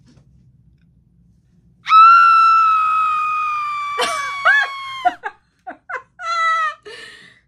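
A woman's long, high-pitched squeal, held for about three seconds and sliding slightly down in pitch, followed by short broken vocal sounds and laughter.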